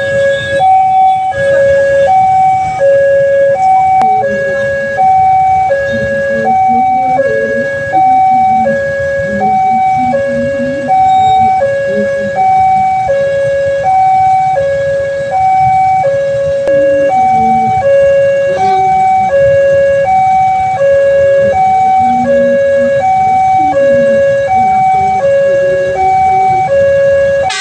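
Railway level-crossing warning alarm sounding its electronic two-tone signal: a higher and a lower tone alternating evenly, about one high–low pair every second and a half, warning that a train is approaching.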